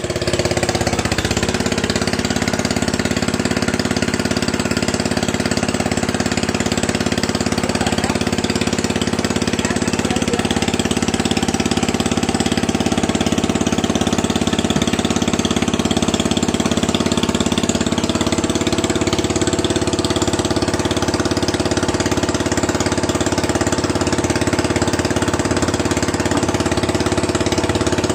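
Engine of a water pump draining a fish pond, running steadily at an even speed.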